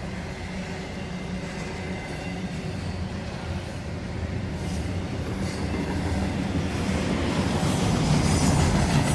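CSX double-stack intermodal freight train passing, its container well cars rolling steadily on the rails, growing louder toward the end. Heard from inside a car.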